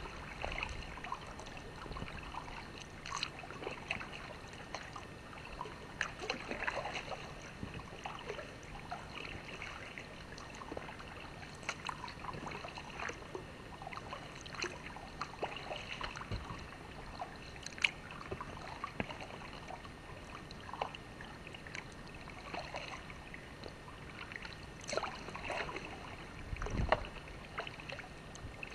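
Kayak paddling on calm water: the paddle dipping and dripping, with many small irregular splashes and light knocks, and a few louder splashes near the end.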